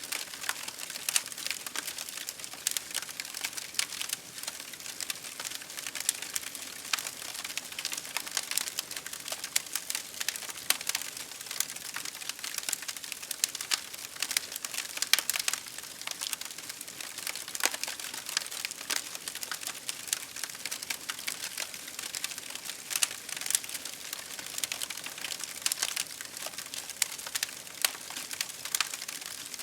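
Campfire crackling, with many irregular sharp pops over a steady hiss.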